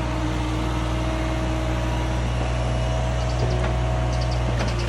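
Caterpillar mini excavator's diesel engine running steadily, with a few light clicks in the second half.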